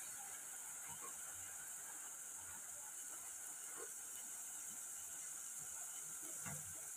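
Chopped onion, garlic and ginger sizzling in hot oil, left unstirred: a steady, faint hiss.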